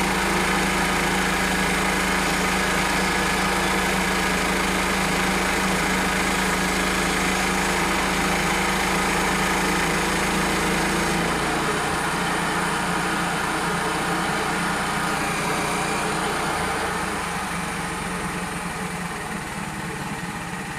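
Frontier OS27 portable band sawmill running under load, its gas engine driving a dull band blade through a maple log. The engine note drops a little about halfway through and the sound eases off near the end, with the dull blade bogging down in hard spots in the wood.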